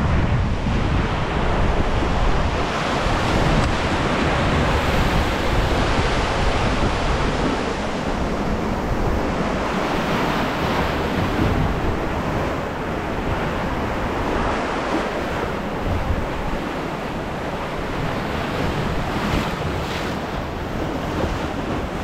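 Whitewater rushing and churning steadily around a river-rapids raft as it floats down a concrete rapids channel, heard from on board, with wind buffeting the microphone.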